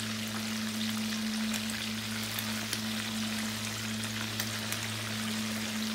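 Fish pieces shallow-frying in hot oil in a pan: a steady sizzle with scattered small crackles, over a steady low hum.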